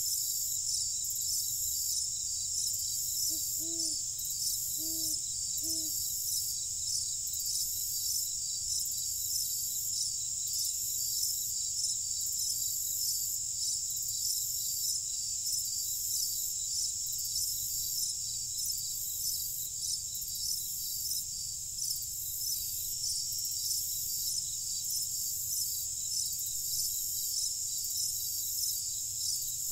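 A night chorus of crickets chirping steadily in a dense, high-pitched shimmer, over a faint low rumble. About three to six seconds in, three short low calls, possibly from a bird or frog, sound once each.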